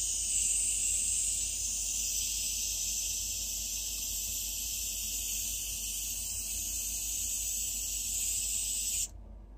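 Airbrush spraying, a steady high hiss of air blowing the wet alcohol ink outward into a petal, which cuts off suddenly near the end.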